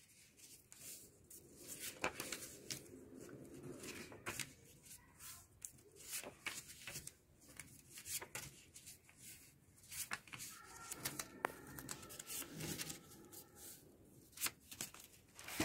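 Coloured paper being folded back and forth into a fan: faint, irregular rustles and soft crackles as fingers crease each fold flat.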